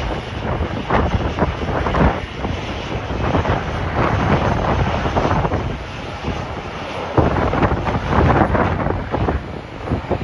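Strong, gusty wind buffeting the microphone, a loud rumbling noise that rises and falls with each gust.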